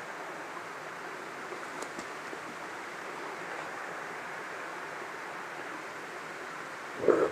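Steady rushing of a stream running through a rocky gully. A short, louder burst cuts in just before the end.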